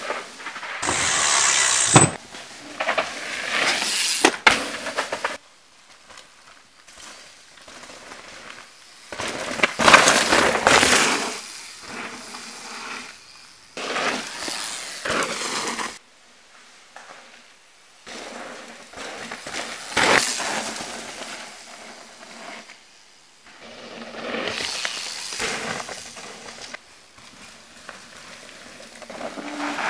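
Enduro mountain bike (Mondraker Dune) ridden hard down a dirt forest trail: tyres rushing and skidding over dirt and dry leaves, with the chain and frame clattering over bumps. Several separate passes, each a few seconds long, with quieter gaps between.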